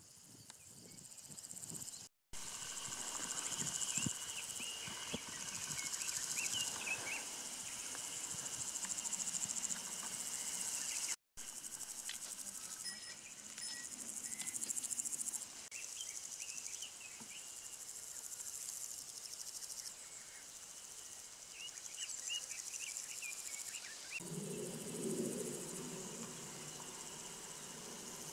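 Summer insect chorus: a steady high-pitched shrill with short chirps scattered over it, and a low buzz, as of an insect flying close, for a couple of seconds near the end. The sound cuts out for an instant twice.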